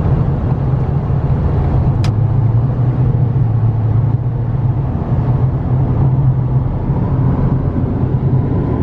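Steady low rumble of a car moving at road speed, heard from inside the cabin: tyre and engine noise, with one short click about two seconds in.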